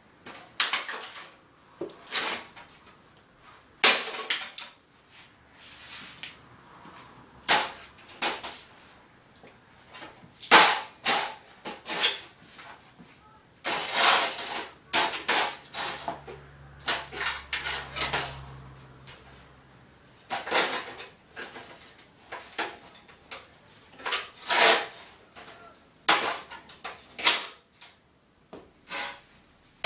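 Repeated irregular hammer blows smashing a desktop computer tower's metal case and plastic parts, each a sharp clang or crack, sometimes several in quick succession, with broken pieces clattering.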